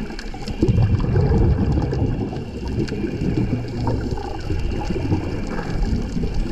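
Muffled underwater rumble of water heard through a diving camera's housing, with a louder bubbling surge for a second or so about half a second in, typical of a scuba diver's exhaled bubbles.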